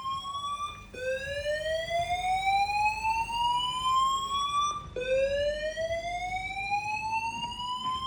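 Fire alarm sounding a slow rising whoop: a tone sweeps upward over nearly four seconds, breaks off and starts again low, repeating about every four seconds.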